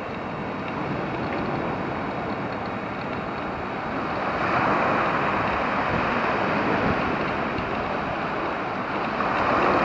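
Small waves washing in over a sandy beach's shallows, a steady rush that swells about halfway through and again near the end.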